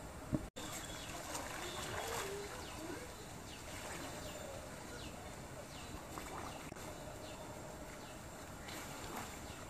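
Outdoor ambience beside a swimming pool: a steady hiss with faint, distant voices of people in the water. There is a sharp click with a brief dropout about half a second in.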